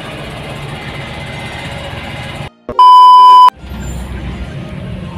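Steady engine and road noise of a vehicle on the move. About two and a half seconds in, the noise cuts out and a loud, steady electronic beep sounds for under a second before the road noise returns.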